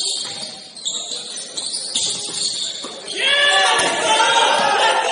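Indoor basketball game: a few short knocks, then from about three seconds in a loud burst of overlapping high squeaks and shouts, the sound of sneakers squealing on the gym floor amid players' voices.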